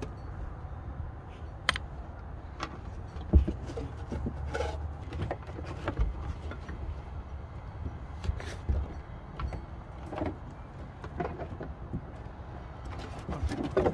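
Hands working a network cable through wiring in an open boat-deck hatch under a metal foot-pedal tray: scattered irregular knocks, clicks and rustling, with one sharper knock about three seconds in. A low steady rumble lies underneath.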